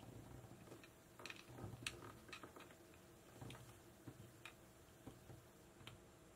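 Faint, scattered clicks and taps, about half a dozen, as test-lead clips are handled and attached to the pins of an engine control unit's connector.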